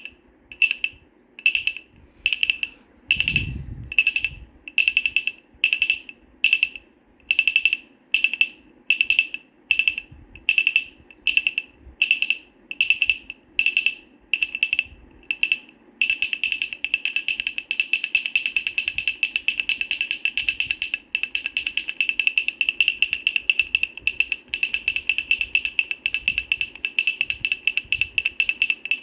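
Wooden baby rattle shaken in separate, evenly spaced shakes, about one and a half to two a second. About halfway through it switches to fast, continuous shaking. There is one low thump about three seconds in.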